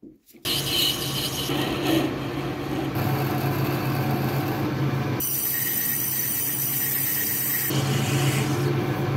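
Metal lathe running, its motor humming steadily, while a tailstock drill and then a countersink cut into a spinning brass bar held in the three-jaw chuck. The sound starts about half a second in and changes abruptly a few times, near three, five and eight seconds in.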